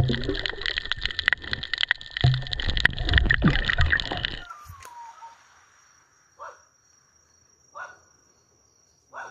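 Rushing, bubbling water noise with many clicks and knocks, picked up by a camera underwater, which cuts off abruptly about four and a half seconds in. After it comes a quiet stretch with a steady high insect drone and two short faint calls.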